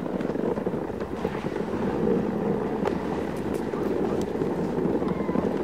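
Dog sled on the move: a steady rushing noise of the sled and team running over snow, with a few faint scattered clicks.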